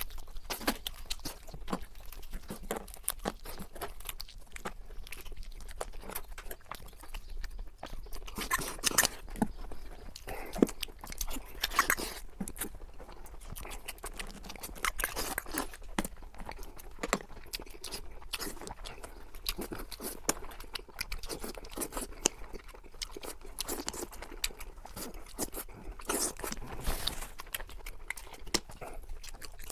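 A person chewing and biting food, with frequent irregular crunches and clicks.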